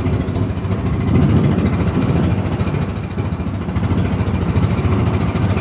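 A boat's engine running steadily, with water rushing past the hull.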